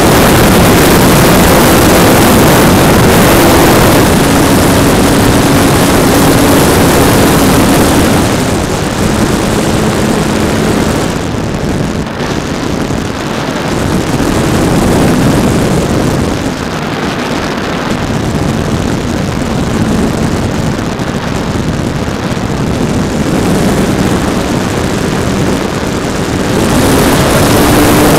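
Electric motor and propeller of an E-flite PT-17 Stearman radio-controlled model biplane, heard from a camera on the plane, running at high throttle with wind rushing over the microphone. Its pitch steps up and down several times as the throttle changes, loudest over the first several seconds and again near the end.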